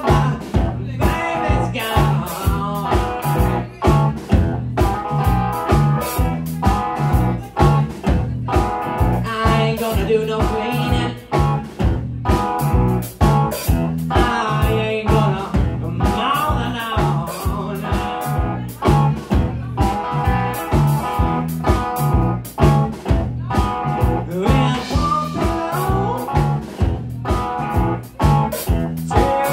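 Live electric blues band playing: distorted electric guitar, bass guitar and drum kit driving a steady beat.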